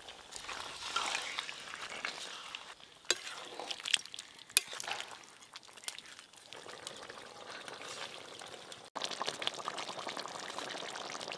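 Chicken curry with potatoes sizzling in a metal kadai over a wood fire, stirred with a flat metal spatula that scrapes and clicks against the pan a few times, about three to four and a half seconds in. At about nine seconds the sound changes abruptly to a steadier, louder hiss.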